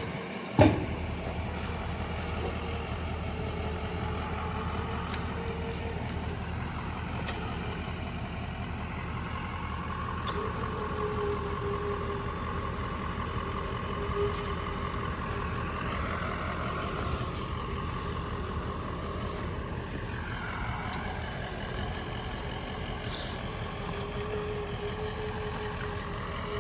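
A truck engine running steadily, with a single sharp knock about half a second in.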